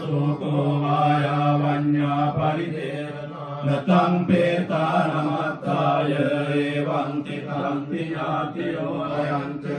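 Buddhist chanting: several voices chant together on a mostly steady pitch, with short breaks between phrases.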